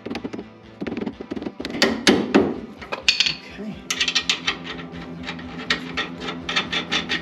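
Hand tools clicking and knocking on metal while parts are fitted to the car's rear suspension, with a quick run of sharp clicks in the second half. Background music plays under it.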